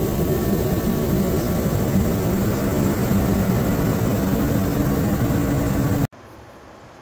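Remington portable forced-air heater running: a loud steady roar with a low hum. It cuts off suddenly about six seconds in, leaving a much quieter steady hum.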